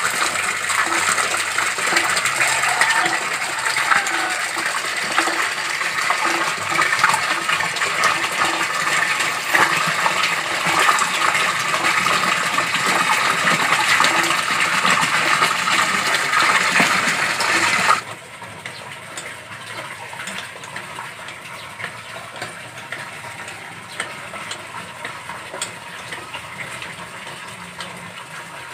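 Water gushing from a hand-operated pitcher pump's spout into a full plastic basin, splashing steadily with a faint regular beat. About two-thirds of the way through it drops suddenly to quieter splashing.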